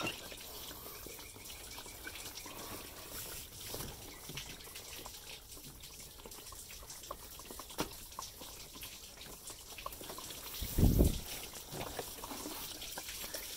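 Engine coolant faintly trickling and dripping from the loosened thermostat housing, with scattered small clicks and one dull thump about eleven seconds in.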